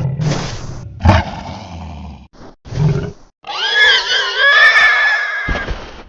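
Cartoon dinosaur (Gojirasaurus) roar sound effects. A few short, low growling roars come first, then one long, high, wavering roar from about three and a half seconds in. A brief low thud comes near the end.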